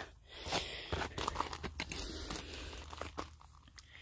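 Handling noise: scattered small clicks and crunching rustles, with no steady sound beneath them.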